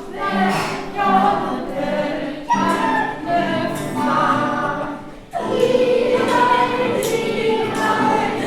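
A group of children singing a song together, with a short break between phrases about five seconds in.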